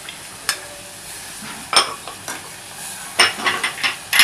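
Steel ladle scraping and clinking against a glass bowl and a saucepan as tomato ketchup is added and stirred into vegetables frying in the pan, over a steady sizzle. A cluster of clinks comes near the end as the ladle stirs the mixture.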